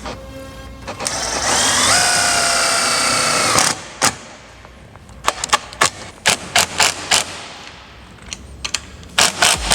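Cordless drill driving a self-tapping screw: the motor whine rises in pitch as it spins up, runs steady for about two seconds, then stops. A run of irregular sharp clicks follows.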